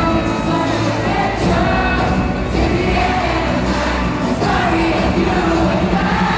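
Live pop concert music: a K-pop boy group singing into microphones over an amplified backing track, recorded from among the audience.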